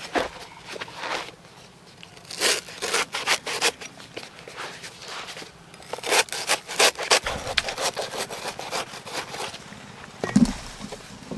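Cleaver blade shaving and chopping at the cut end of a banana-plant stem in two runs of quick, repeated strokes, followed near the end by one dull thump.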